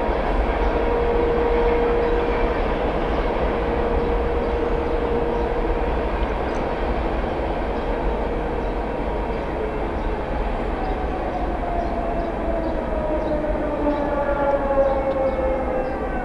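American Signal T-128 outdoor fire siren holding a steady tone, then winding down in pitch toward the end, over the low rumble of a passing train. The siren is not very loud, which may mean its rotators are stuck.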